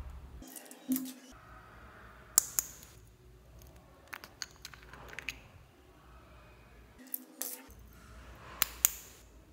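Small plastic glitter pots clicking and tapping as they are handled and their lids opened. There are several sharp clicks, loudest as two quick pairs, one a couple of seconds in and one near the end.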